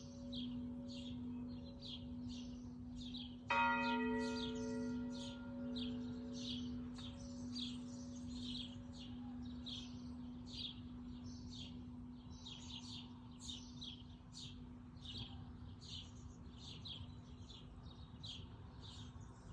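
A church bell struck once about three and a half seconds in, its deep hum ringing on and slowly fading, with the hum of the previous stroke still sounding before it. Birds chirp steadily throughout, two or three short notes a second.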